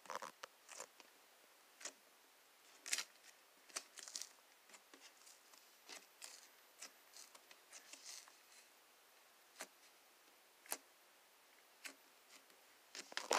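Faint, irregular small clicks and pops of slime being squished and stretched by hand.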